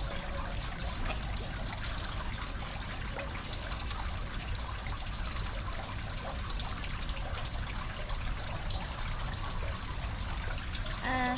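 Steady, even hiss like trickling water, with a brief voice sound near the end.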